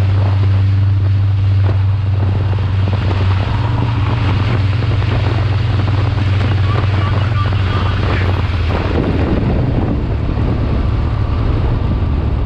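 Race car engine running hard at speed, a steady low engine note with wind buffeting the microphone. The engine note shifts about three and a half seconds in.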